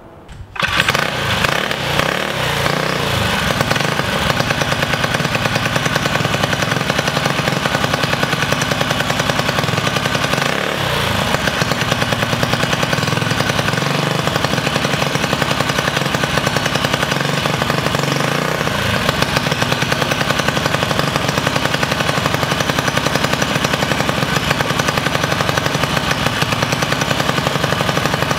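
Stage 4 built Tillotson single-cylinder minibike engine firing up about half a second in and running, revved up and back down a few times.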